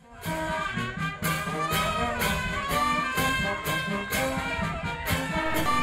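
Background music: a brass-led tune over a steady beat of about two beats a second.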